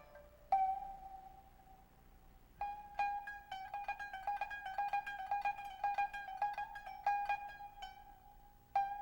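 Koto (Japanese zither) being plucked: a single note left to ring, then a quick run of repeated plucks on much the same note, and one more single pluck near the end.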